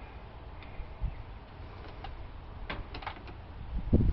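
Light clicks and knocks of parts and hardware being handled on an engine during reassembly, with a louder dull thump near the end.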